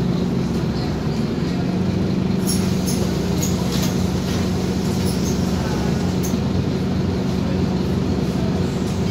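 Scania OmniCity double-decker bus's diesel engine idling steadily while the bus stands still, heard inside on the upper deck. A few light clicks and rattles from the bus interior come in the middle.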